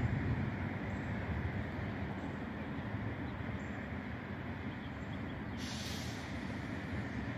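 Steady low rumble of a freight train in a railyard, with a short hiss of air from the air brakes about five and a half seconds in.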